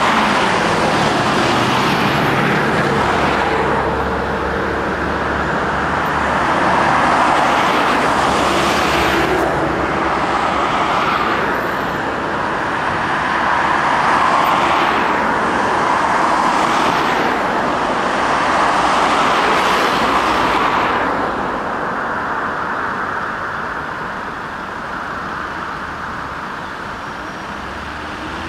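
Road traffic: cars passing one after another, a continuous rush of tyres and engines that swells several times as vehicles go by. It eases off near the end.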